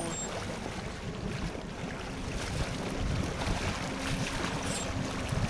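Steady wind buffeting the microphone over a fishing boat's motor running, with water washing past the hull.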